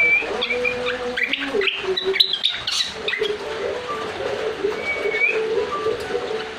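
A srikatan songbird singing in quick chirps and short whistled slides, with a dense run of chirps between about one and three seconds in. Under it runs a low, drawn-out cooing, like a dove.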